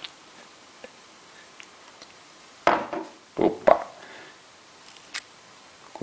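Handling noises from a Zippo lighter and a lighter-fluid can during a refill: a click at the start, a cluster of louder knocks and scrapes about three seconds in, and one more click near the end.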